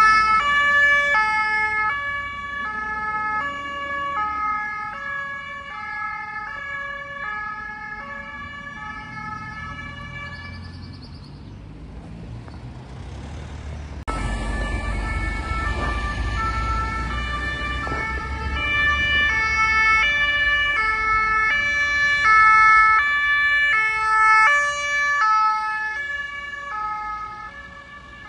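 German two-tone emergency sirens (Martinshorn) on DRK emergency cars, switching between a high and a low note about once a second. The sirens fade away about halfway through, then come back loud over a low rumble of road traffic.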